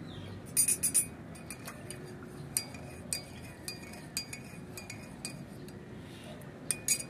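Metal teaspoon stirring coffee in a ceramic mug and clinking against the sides. There is a quick run of clinks about half a second in, then single clinks every half second or so, and another quick run near the end.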